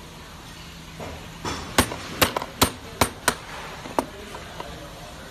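Hammer tapping on the metal rear shock absorber mount of a Kugoo S1 electric scooter: a quick run of about eight sharp, slightly ringing knocks, starting about a second and a half in, to drive the shock into line with its mounting holes.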